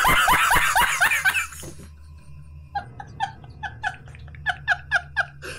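A man laughing hard. First comes a loud burst of laughter for about two seconds, then a quieter, rhythmic string of high-pitched laughs, about three a second.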